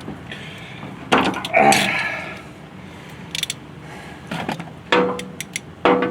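Gland wrench working on the gland of a skid steer's hydraulic bucket cylinder: a string of uneven metal clicks and knocks as the wrench is forced and slips. Two of the later knocks ring briefly.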